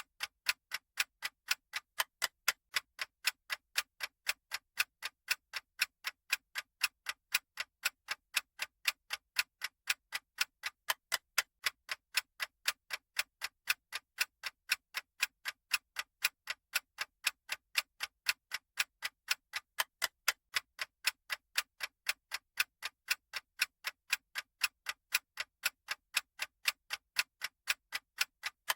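Clock-style ticking sound effect of a countdown timer: sharp, even ticks at a fast, unchanging rate.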